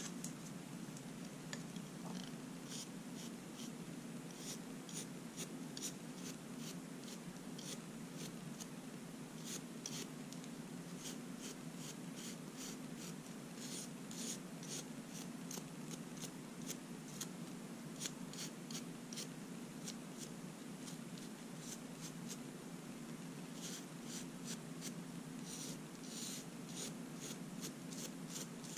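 Small irregular clicks and scratches of manicure work on long natural fingernails, over a steady low hum.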